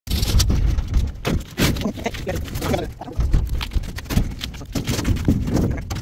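A man's voice mixed with repeated knocks and rattles from sheet-metal water heater casings being handled, over a low rumble.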